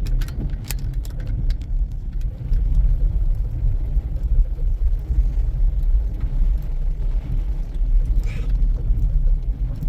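Steady low rumble of a car driving, its road and wind noise heard from inside the cabin, with a few faint clicks in the first couple of seconds.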